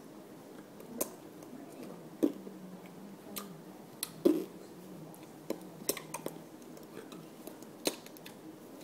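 Irregular sharp taps and clicks of hands striking and brushing each other while signing, about one or two a second, the loudest about four seconds in, over a faint low hum of room tone.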